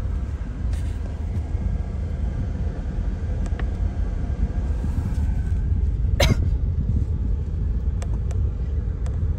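Steady low rumble of a moving car, with a few faint clicks and one louder, sharp click about six seconds in.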